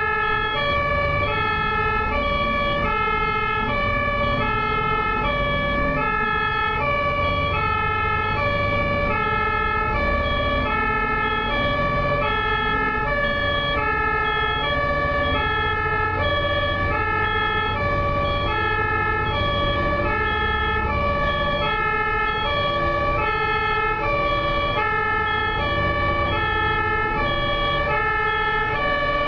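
German two-tone ambulance siren (Martinshorn) switching back and forth between a high and a low note at an even pace, with a low rumble of road traffic beneath.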